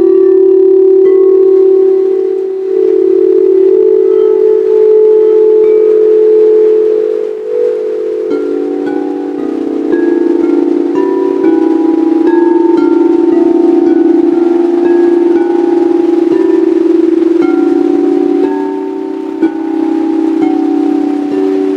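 Singing bowls ringing in long, overlapping sustained tones, with higher chime-like notes coming and going above them. The low tones step down in pitch about eight seconds in.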